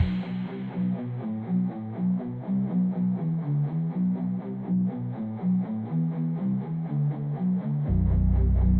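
Instrumental break in a rock song: a guitar picks a quick repeating riff, and a heavy bass comes in near the end.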